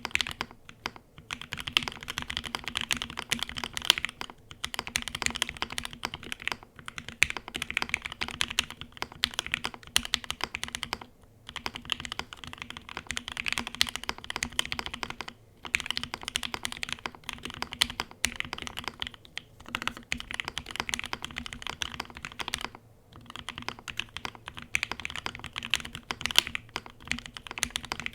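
Fast typing on an IV Works Av3 Ash gasket-mounted custom mechanical keyboard with a full FR4 plate, lubed Mauve switches and GMK keycaps. Rapid runs of keystrokes, broken by brief pauses every few seconds.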